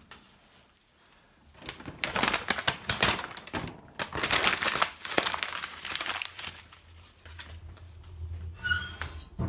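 Crackling and crinkling as a fire is lit and the kindling catches, loud for several seconds and then easing, with a low rumble near the end.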